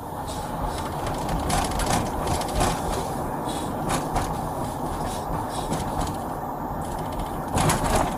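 Steady road and engine noise inside a moving car, with a few short knocks and rattles; the loudest comes near the end.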